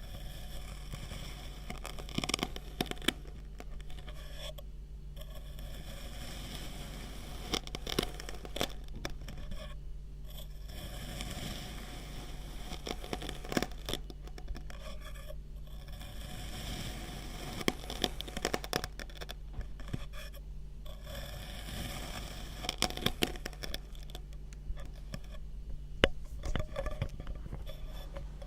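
Kinetic sand being cut and scraped with a tool: a grainy scraping sound with scattered sharp, crunchy crackles at irregular moments, over a steady low hum.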